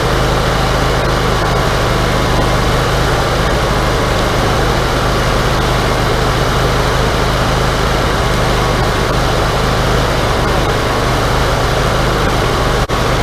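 Wood-Mizer LT40 hydraulic portable sawmill running steadily, its engine note constant throughout.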